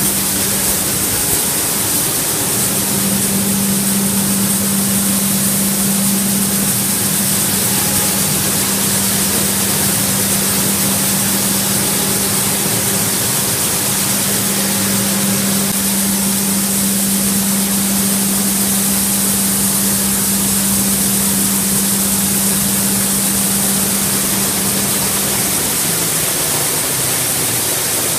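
Bean-sorting and processing machinery running in the plant: a steady, loud hiss with a hum under it, the hum cutting out a few seconds before the end.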